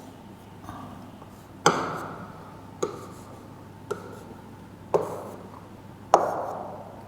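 Five sharp taps of a pen or chalk on a writing board, each ringing off in a small room's echo, from drawing and labelling a diagram.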